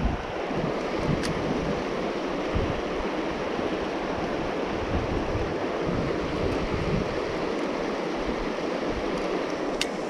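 Shallow river running fast over rocky riffles: a steady rush of water. Gusts of wind buffet the microphone underneath.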